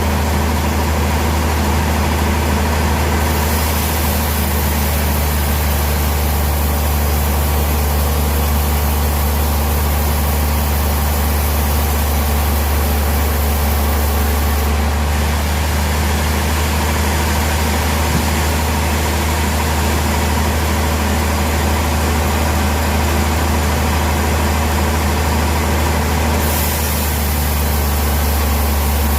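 An engine running steadily at idle with a constant low hum.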